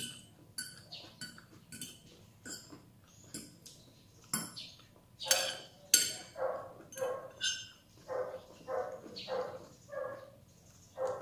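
A spoon clinking and scraping against a dish while eating, in sharp separate clicks. From about halfway on, a run of short pitched sounds comes roughly twice a second.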